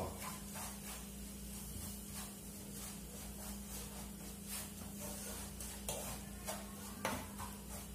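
Wooden spoon stirring and scraping farofa (manioc flour toasting with fried sausage) around a frying pan in soft, irregular strokes, over a faint sizzle. A few strokes near the end are a little louder.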